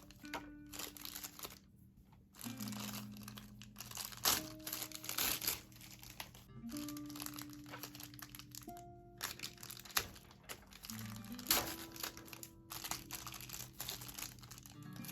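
Soft background music with held notes, over repeated crinkling and rustling of packaging being handled.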